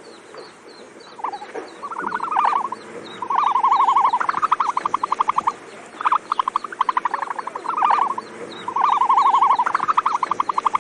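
Animal calls: repeated rapid trills of about a dozen pulses a second, in phrases about a second long, with two callers overlapping.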